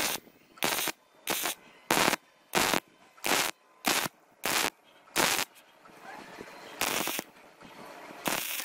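A wire-feed welding gun stitch-welding a steel square-tube frame joint: short bursts of crackling arc as the trigger is pulsed on and off, about one and a half a second. Near the end the bursts come further apart.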